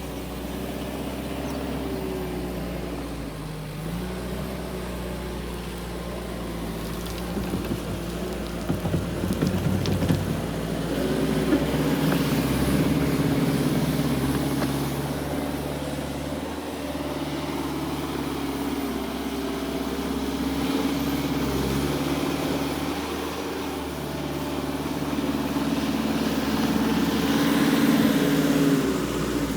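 JCB 1CXT compact loader's diesel engine running under changing load, its note rising and falling as the machine works. A short run of sharp knocks comes about a third of the way in.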